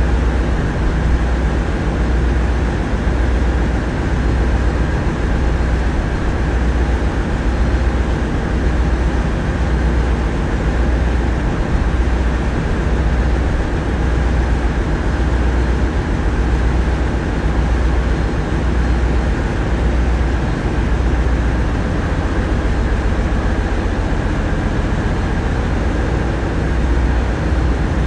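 Tugboat diesel engines running steadily, a low hum that throbs about once a second under a constant machinery noise.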